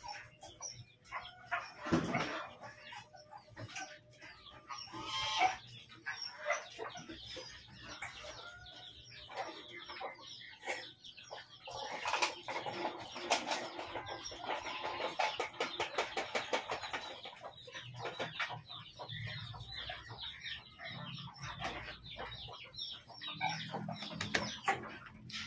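Chickens clucking, with many quick clicks, scrapes and rustles, thickest midway through, as food is handled in a bowl at the cage.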